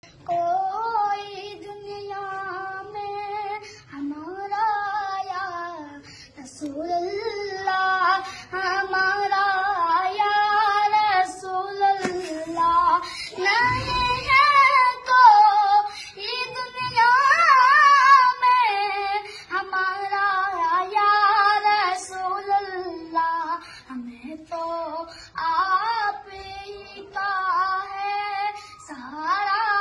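A young boy singing a naat, a devotional song to the Prophet, alone and without accompaniment. His notes are long and held with ornamented, wavering turns, broken by short pauses for breath.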